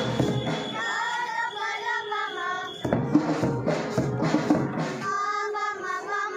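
A group of children singing together, accompanied by an electronic keyboard and a drum kit, with drum hits about three seconds in.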